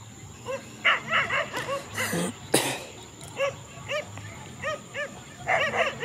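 Dogs barking: scattered single barks and short bursts, then a rapid flurry of barking near the end. A short sharp noise about two and a half seconds in.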